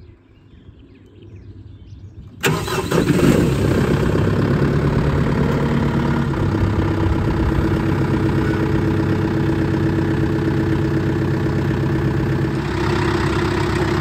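Compact tractor's engine started with the key: it catches with a sudden jump in level about two and a half seconds in, then runs at a steady idle.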